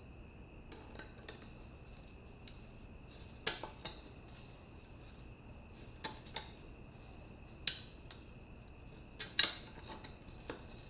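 Metal tyre spoons clinking against a motorcycle wheel rim while the tyre bead is worked loose: a string of sharp, irregular clinks.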